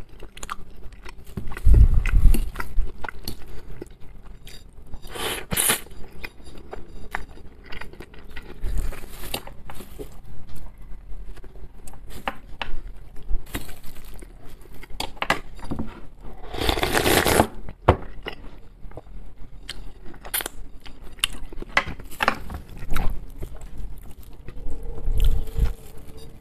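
Close-miked eating of instant noodles and canned mackerel: chewing and mouth noises, with a metal fork scraping and clicking on a ceramic plate. Two louder noisy bursts come about five and seventeen seconds in.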